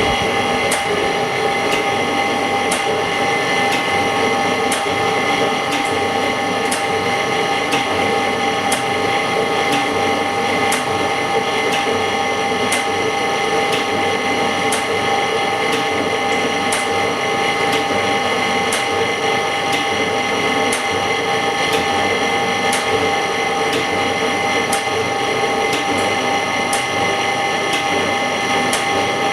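Semi-automatic LCD separator running steadily as its steel cutting wire works the cracked glass off an iPhone 6S LCD: a constant machine hum with a regular click about once a second.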